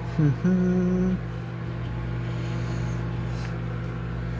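A steady low electrical hum from a kitchen appliance. About a quarter second in, a person's voice gives a short hum that drops in pitch and then holds for about a second.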